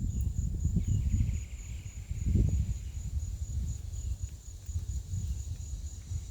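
Gusty wind buffeting the microphone in uneven low rumbles, with a strong gust about two and a half seconds in. Underneath runs the steady high pulsing trill of insects.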